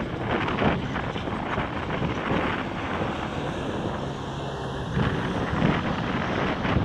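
Massey Ferguson 7616 tractor's diesel engine running steadily under load while ploughing, with gusty wind buffeting the microphone over it.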